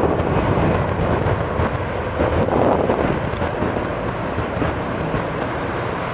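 Distant steady rumble of an Airbus A380's four Rolls-Royce Trent 900 jet engines as the aircraft rolls out along the runway after landing, easing slightly toward the end.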